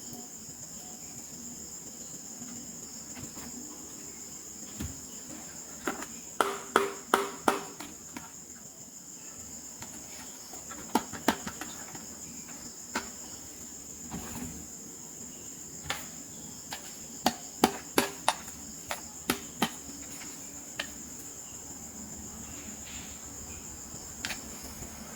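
Sharp clicks and taps of small plastic toy pieces being handled and snapped, in quick clusters, over a steady high-pitched whine.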